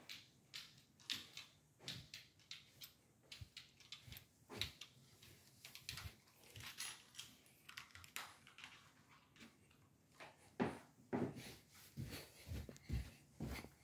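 Faint footsteps on carpet, with light clicks and rustles from a phone being handled, as someone walks through an empty room and across a landing. Near the end comes a run of heavier thuds, footfalls on carpeted stairs.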